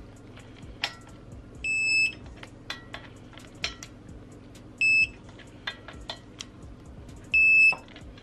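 Digital torque wrench beeping three times, once for each flywheel bolt, as it reaches the set torque of 36 ft-lb. Each beep is a short, high, steady tone, and short clicks from the wrench on the bolts come in between.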